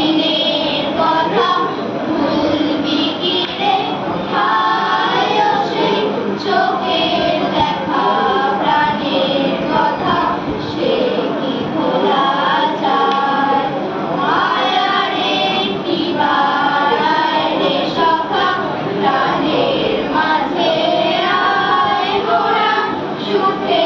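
A group of children's voices singing a song together in chorus, continuously and evenly.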